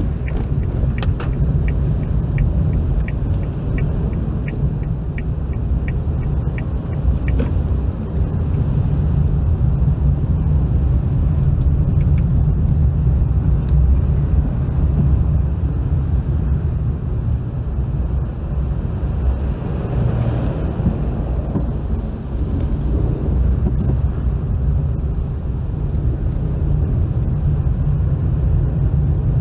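Car interior in slow traffic: a steady low rumble of engine and road noise. For the first seven seconds or so a turn-signal indicator ticks steadily, about two to three ticks a second.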